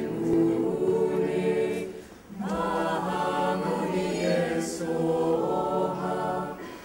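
Choir singing long, held notes. There is a short break about two seconds in before the next phrase starts.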